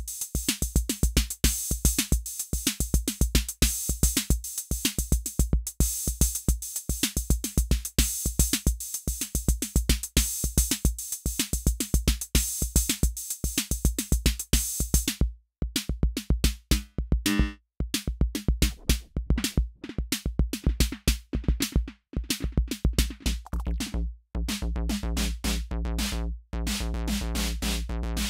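Roland TR-06 Drumatix drum machine playing a fast pattern of kick and hi-hat hits. About halfway through the bright hi-hats drop out and the pattern breaks up with short gaps. Near the end the hits blur into a steady buzzing drone, the sound being mangled by the machine's effects.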